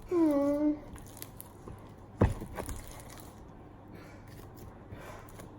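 A brief vocal sound, then a sharp knock about two seconds in and quiet squishing and scraping as sticky, over-watered glitter-glue slime is worked in a bowl.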